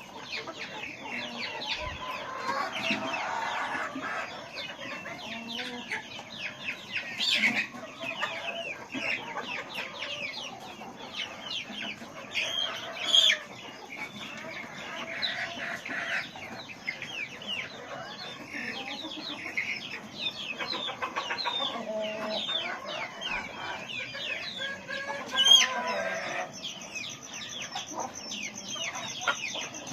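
A large flock of poultry-farm chickens clucking and chirping all at once, a dense unbroken chorus of overlapping short calls. A few single calls stand out louder about 7, 13 and 25 seconds in.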